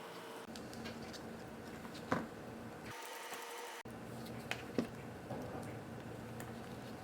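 Faint small clicks of a watchmaker's tool working the tiny brackets that hold a digital watch module's screen: one sharp click about two seconds in, then two more in quick succession a couple of seconds later, over a steady low hum.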